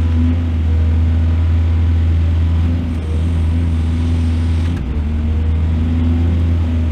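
Excavator's diesel engine running steadily with a deep hum, its tone shifting slightly about five seconds in.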